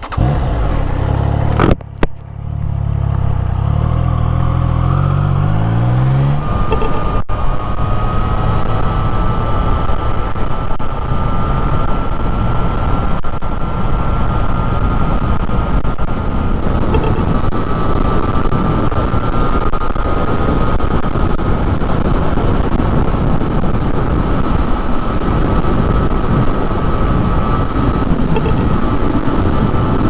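Wind noise inside a motorcycle helmet at road speed, picked up by a microphone beside the rider's ear: a loud, steady rush. In the first few seconds the Triumph Trident 660's three-cylinder engine accelerates, rising in pitch. From about six seconds in a thin, steady whistle sits over the rush.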